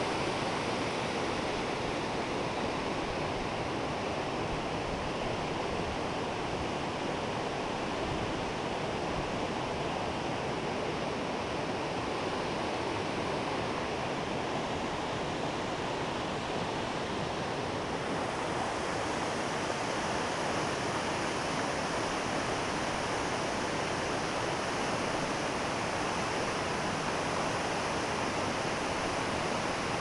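Rushing white water of a rocky stream and waterfall, a steady, continuous rush of water. About two-thirds of the way through it turns hissier.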